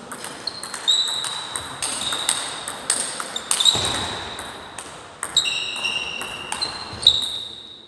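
Table tennis rally: a plastic 40+ ball clicking off bats and table in quick succession, with high ringing pings hanging on after several of the hits.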